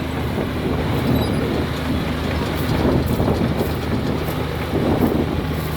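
Komatsu D83E bulldozer's six-cylinder turbo diesel engine running steadily under work, a rough, even engine noise with a low hum.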